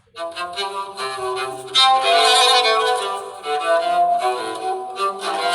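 An alarm tone playing a violin melody, starting abruptly and getting louder about two seconds in.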